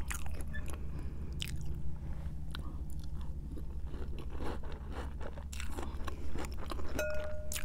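Close-up chewing of crunchy Cap'n Crunch's Christmas Crunch cereal in milk, crackly and wet, with a metal spoon scraping and clinking in a glass bowl.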